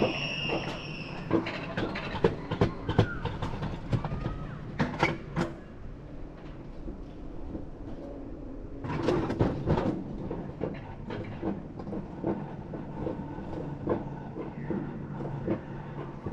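Mountain coaster car running along its rails, with a steady low rumble and irregular clacks and knocks from the wheels and track joints. There is a brief high squeal at the very start.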